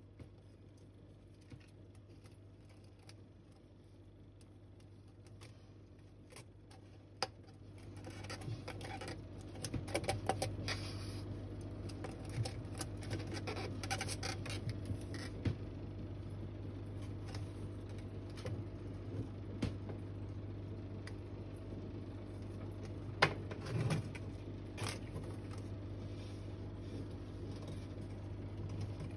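Handling noises from a water monitor being stroked and held on cork bark: irregular rustling and scraping of scales and claws against the bark, with scattered sharp clicks, growing busier about a third of the way in. A steady low hum underlies it.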